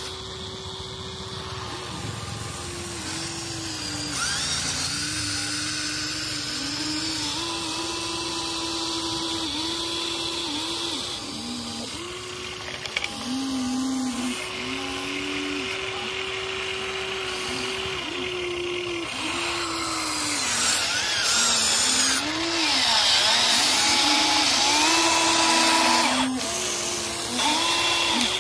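Huina 1593 RC excavator's electric motors whining as the boom, arm and bucket move, the pitch stepping up and down as each motion starts and stops. It grows louder and noisier in the second half, and near the end dirt and stones spill from the bucket into the toy dump truck's bed.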